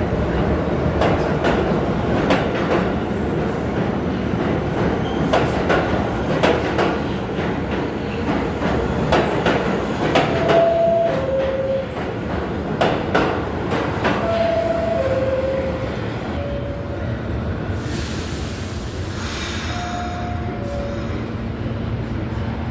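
New York City subway train pulling into the station and slowing to a stop, its wheels clattering with sharp clacks over the rail joints. Two-note falling chimes sound about four times in the second half, and a burst of air hiss comes near the end as the train stands.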